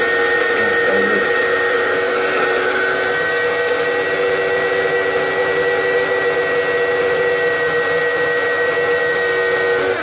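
Electric blade spice grinder running steadily with a loud motor whine, grinding coriander seeds, black peppercorns and dried red chili; the motor starts spinning down at the very end.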